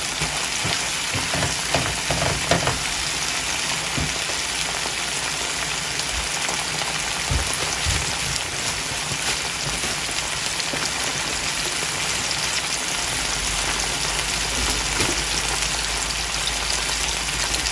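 Canned tuna, onion and tomato frying in oil in a nonstick pan: a steady sizzle, with a few soft knocks in the first three seconds.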